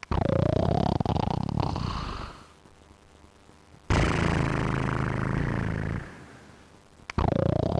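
Cartoon-style snoring voiced by a person: a loud snore drawn in for about two seconds, a short lull, then a long low snore breathed out. The next in-breath begins near the end.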